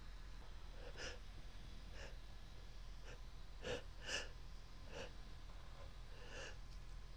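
A woman's short, soft breaths and gasps, roughly one a second, with two stronger ones close together a little after the middle, while snuff irritates her nose between sneezes.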